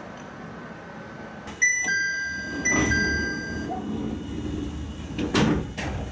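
Two-note electronic chime, a high note dropping to a lower one, sounded twice in quick succession, with low rumbling underneath and a few sharp knocks near the end.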